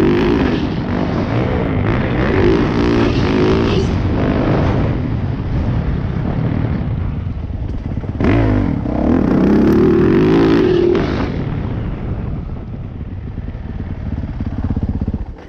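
2018 Yamaha YZ450F's single-cylinder four-stroke engine running under throttle on the track, revving up and easing off several times. It cuts out abruptly near the end as the bike runs out of fuel.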